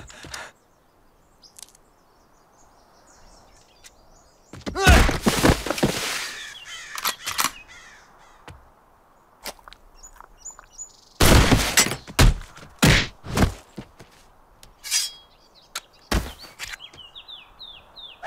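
Fight sound effects: one loud, long crash about five seconds in, then a quick run of hits and thuds from about eleven seconds, with a few more single hits and some short high chirps near the end.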